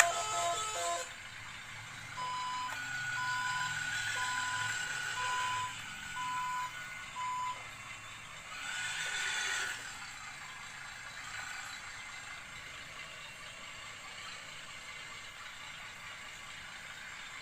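An RC truck's ESP32-generated sound effects: the tail of a basuri horn melody cuts off about a second in, followed by a reversing alarm of about six evenly spaced beeps. A short hiss follows about nine seconds in.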